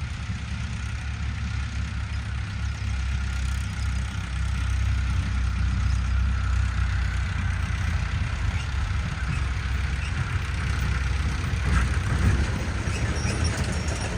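Heavy diesel engine running steadily at a low speed, getting somewhat louder about four seconds in.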